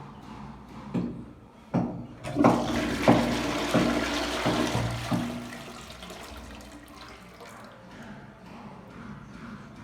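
Jaquar concealed cistern flushing: a couple of clicks, then water rushes into the toilet bowl for about three seconds with a few knocks and dies away.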